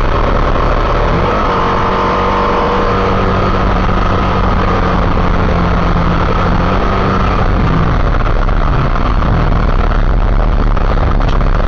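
Motorcycle engine running at riding speed under heavy wind rush on the microphone, its engine tone standing out from about a second in until near the end.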